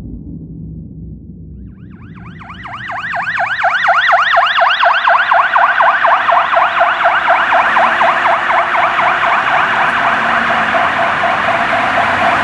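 Ambulance siren in a fast yelp, its pitch sweeping up and down several times a second. It swells in about two seconds in and then holds steady and loud.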